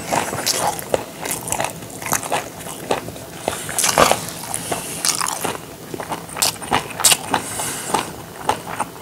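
A man chewing food close to a clip-on microphone: irregular clicks and smacks of the mouth, with a louder click about four seconds in.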